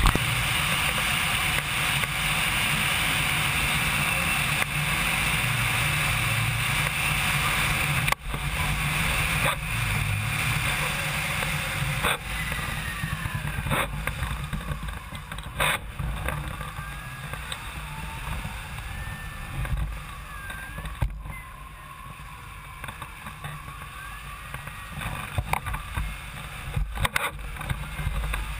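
Wind rushing over the microphone of a camera mounted on a hang glider in flight, a steady roaring noise that eases off about halfway through. A few sharp knocks from the camera mount are heard.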